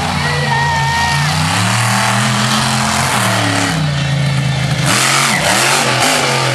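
Avenger monster truck's engine revving up and down repeatedly as the truck drives around the dirt arena. About five seconds in, the truck hits a ramp and goes airborne, and the sound swells into a loud burst with rapid rises and falls in engine pitch.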